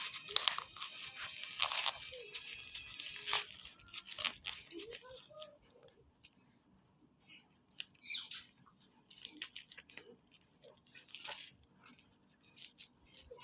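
Packaging being handled and opened by hand: crinkling and tearing of wrapping, with scattered clicks and taps, busiest in the first two seconds and sparser after.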